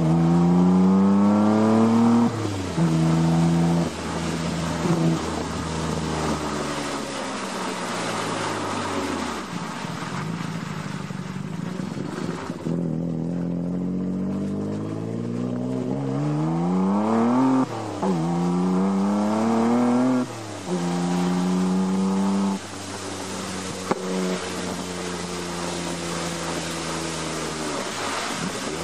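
Nissan Skyline GT-R R33's twin-turbo straight-six through an HKS Hi-Power exhaust, driving: the note climbs under acceleration and drops back sharply at each upshift, about three times, with stretches of steady cruising and two spells where the revs fall away as the car slows. A steady hiss runs underneath.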